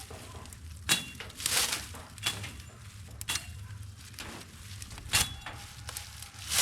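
Dry vegetation rustling and crunching in separate strokes about once a second, with a few sharp snaps, as dry plant debris is handled and gathered.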